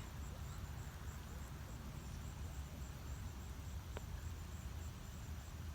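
Outdoor ambience: insects chirping in a faint, high-pitched, even pulse, about three chirps a second, over a steady low rumble. A single short click sounds about four seconds in.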